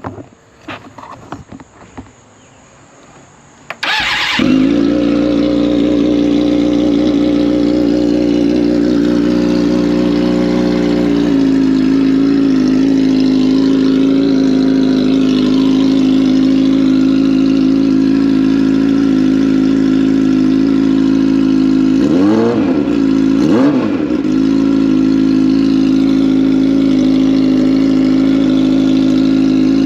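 Suzuki GSX-R 600's inline-four engine catching about four seconds in and then idling steadily, the idle settling a little about eleven seconds in. Two quick blips of the throttle come about two-thirds of the way through.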